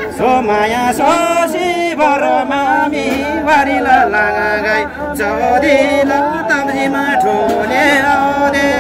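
A Tamang folk song with a singer holding long notes and bending them in ornamented glides over a steady instrumental backing, with light percussive strikes here and there.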